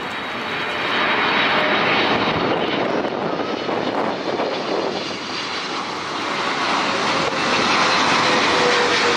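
Jet engine noise from a British Airways Boeing 777 flying low on landing approach: a steady rushing noise with a faint high whine, growing louder near the end as the twin-engine airliner comes nearly overhead.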